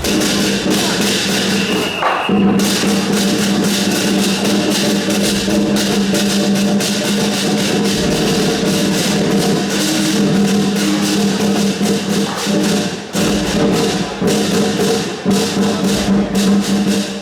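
Loud temple procession music: rapid, dense percussion over a steady held note, with brief breaks about two seconds in and again near the thirteen-second mark.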